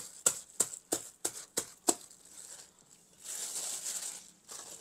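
A drinking glass pounding ginger and garlic inside a plastic carry bag on a carpeted floor, used in place of a mortar: sharp knocks at about three a second that stop about two seconds in. A little later the plastic bag rustles as it is opened over the crushed paste.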